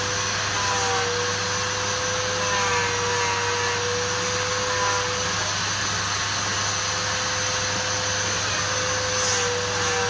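Wood-turning lathe running steadily, with a constant whine that wavers slightly in pitch over a low hum.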